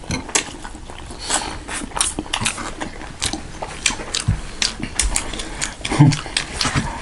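Close-up eating sounds: wet chewing and mouth smacks, in quick irregular clicks, with a few low thuds, the loudest about six seconds in.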